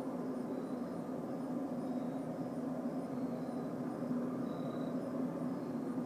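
Steady low droning hum from the sky, of unknown origin, which the uploader guesses is a skyquake. Faint high ticks repeat at an even pace above the drone.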